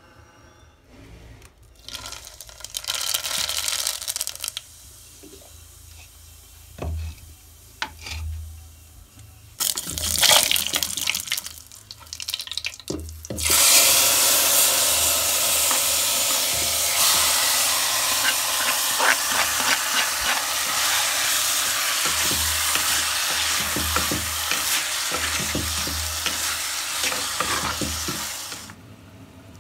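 Marinated pork pieces tipped into hot oil in a clay pot, sizzling loudly and steadily for about fifteen seconds before cutting off near the end. A wooden spoon knocks and scrapes in the pot while it fries. Shorter bursts of sizzling come earlier.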